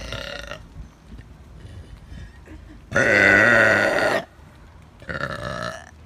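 A young woman burping loudly. The tail of one burp fades out at the start, a long, loud burp follows about three seconds in and lasts over a second, and a shorter burp comes about five seconds in.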